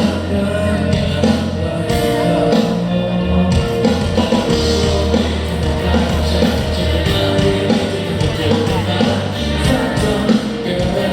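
Live band music with singing, a loud rock-pop song played through at a sound check.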